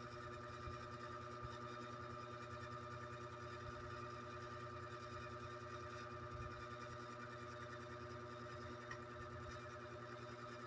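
Faint steady hum of a running machine or appliance, several fixed tones held without change.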